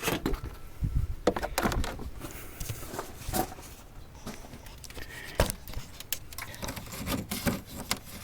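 Scattered light clicks and knocks of plastic car trim being handled as a grille panel is worked loose.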